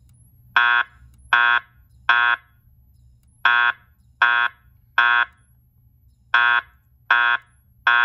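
Fire alarm speaker/strobe sounding the temporal-three evacuation tone: three short, loud beeps, a pause, and the pattern repeated three times.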